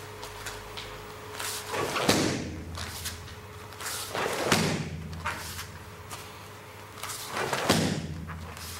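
Three heavy thuds of bare-foot low kicks, struck with the instep into a handheld kick pad, a couple of seconds apart, each with a short swish just before the impact.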